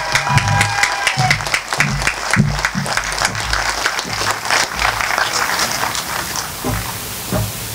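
Crowd applauding after a speech, dense clapping that thins out over the last few seconds, with a long held cheer from one voice in the first second.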